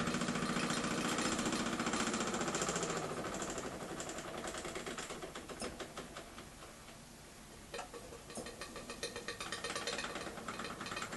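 Märklin 4097 model steam engine running on steam from a homemade boiler, with a rapid mechanical beat. It is throttled back and dies away to a low about seven seconds in, then picks up again at a slower, clearer beat.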